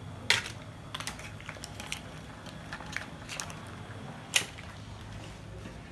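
Cooked mussel shells clicking and clattering against each other and the metal pan as they are scooped out, with two sharper knocks, one about a third of a second in and one past four seconds. A low steady hum runs underneath.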